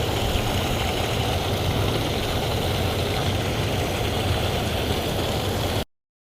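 Steady rush of river water pouring over a concrete waterfall, a deep, even noise that cuts off suddenly near the end.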